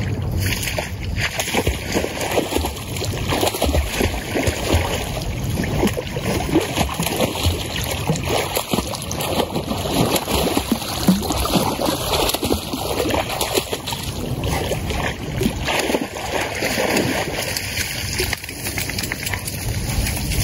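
Pond water sloshing and splashing without a break as a dog swims.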